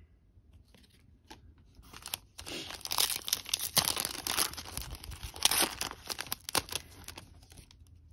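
Foil trading-card pack wrapper being torn open and crinkled by hand: a run of crackling tears starting about two seconds in, dying away near the end.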